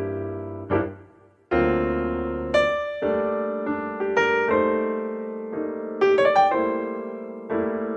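Slow, calm piano music: chords and single notes struck and left to fade, with a quick run of notes about six seconds in.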